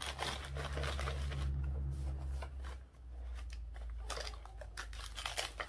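Clear plastic jewelry packaging being handled, crinkling and rustling with scattered small clicks, over a steady low hum.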